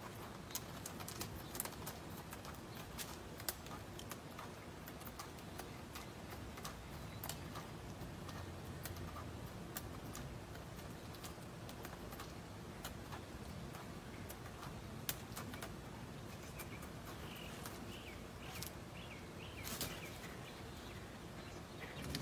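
Faint scattered clicks and light scratching as an Egyptian Mau cat claws at a young tree's bark and steps through dry leaf litter. A few faint bird chirps come about three-quarters of the way in.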